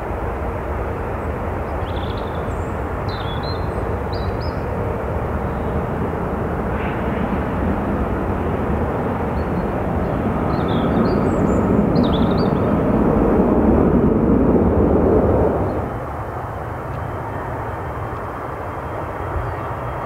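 Twin-engine jet airliner climbing out after takeoff, its engines making a steady broad rumble that swells and then drops off abruptly about three-quarters of the way through. Small birds sing short high chirps over it in two spells.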